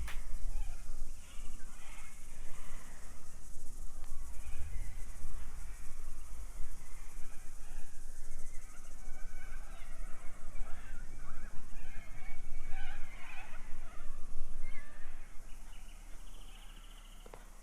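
Outdoor riverbank ambience: scattered bird calls and chirps over a steady high hiss and a low rumble, fading near the end.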